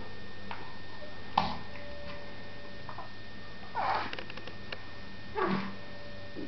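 Newborn baby's soft snuffles and small grunts, two short ones about four and five and a half seconds in, over a steady low hum, with a sharp click before them.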